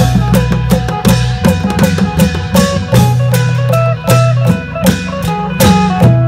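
Background music: plucked strings over a steady, driving drum beat.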